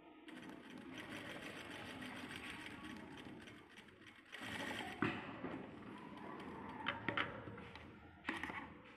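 Sewing machine running as it top-stitches a fabric mask seam, steady for about four seconds. It then gives a louder burst, followed by a few sharp clicks near the end as the work is taken off the machine.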